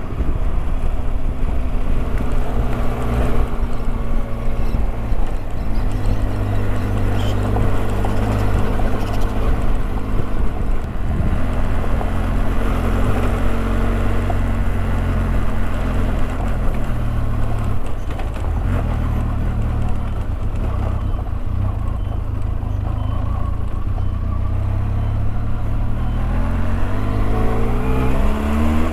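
Benelli motorcycle engine running steadily under way on a gravel road, with road and wind noise around it; near the end the revs climb.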